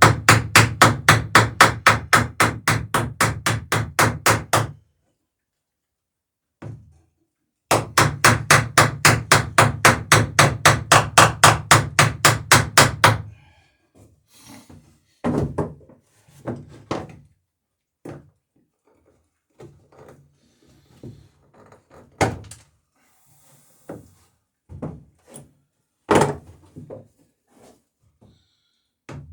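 Hammer riveting a wooden dinghy's lapped sheer strake: two runs of quick, even blows, about five a second. The first run stops about five seconds in; the second starts a few seconds later and stops about halfway through. After that come scattered, lighter knocks and taps.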